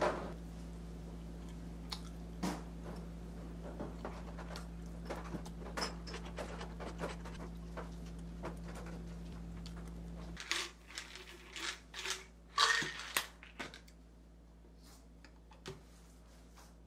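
Quiet eating sounds: chopsticks and a spoon tapping a small ceramic rice bowl, with chewing, over a steady low hum. About ten seconds in the hum stops, and louder clicks and knocks follow as a vitamin bottle and a stainless steel tumbler are handled.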